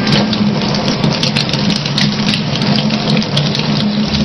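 Kitchen faucet running in a thin, steady stream and splashing as a cat drinks from it, with a steady low hum underneath.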